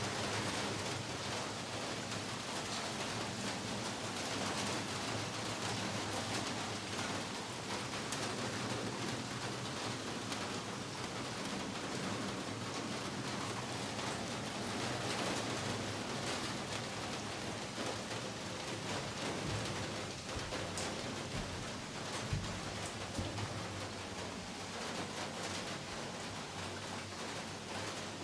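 Heavy rain falling steadily. One brief low thump about three-quarters of the way through.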